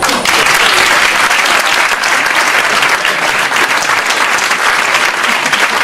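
Audience applauding: dense clapping that starts suddenly and stops near the end.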